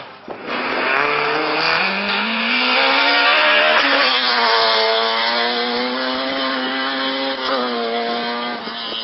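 Rally car engine revving hard on an approach along the stage, its pitch climbing over the first couple of seconds, dipping briefly about four seconds in, then holding a high, steady note.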